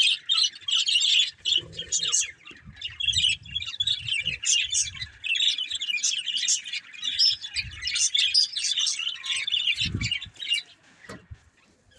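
Budgerigars chattering in a dense stream of rapid high chirps that dies away about eleven seconds in, with a few low thumps underneath.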